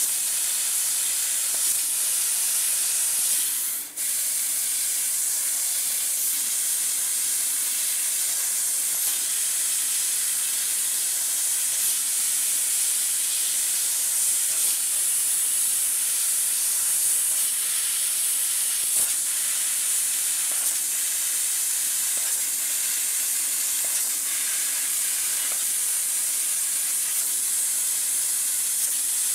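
Laser cutting head's assist-gas jet hissing steadily as it cuts sheet metal, with a brief break about four seconds in.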